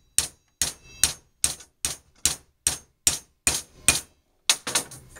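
Hammer blows on a black steel pipe nipple, driving a new front bearing down onto a spa pump motor's armature shaft by its inner race. About ten evenly paced clanks, some two and a half a second, then a quicker few near the end as the bearing seats.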